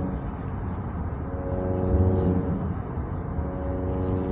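Inside the cabin of a 1998 BMW 328i (E36) at highway cruise: the inline-six and its aftermarket Remus exhaust give a steady drone over low road rumble.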